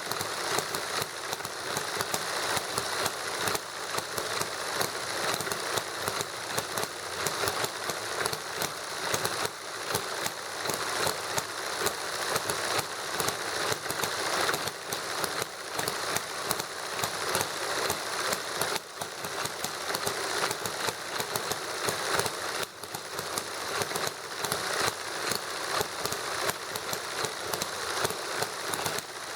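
A small hit-and-miss model gasoline engine running on lighter fluid together with a model Stirling engine, a fast, uneven run of small clicks and pops with mechanical clatter.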